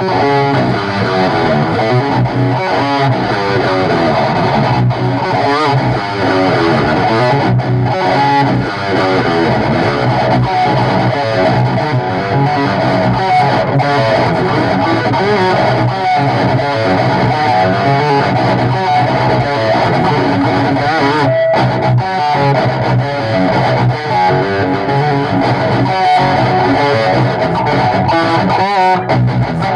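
Band playing an original rock song, led by distorted electric guitar through effects with bass guitar underneath, loud and steady throughout.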